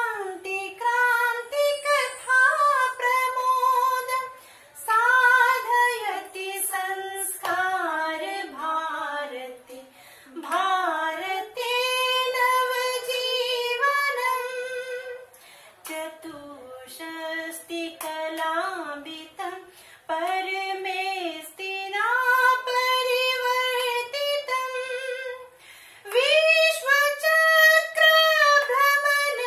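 A solo female voice singing a dhyay geet (anthem) in phrases, with long held notes that waver slightly and brief breath pauses, without instrumental accompaniment.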